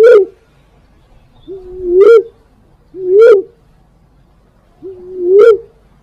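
Lure-call recording of a female walik (fruit dove): mellow hooting coos, each a low held note that swells and rises at its end. Four calls at uneven spacing, about one to two seconds apart. It is a call meant to draw male pigeons in.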